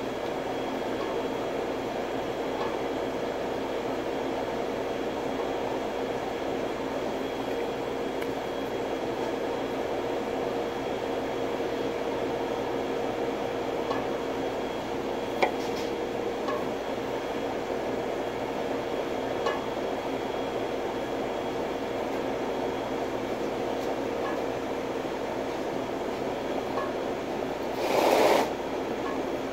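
Commercial kitchen exhaust hood fan running with a steady hum and rush of air, holding a few steady tones. A few faint clicks in the middle and a brief, louder rush of noise near the end.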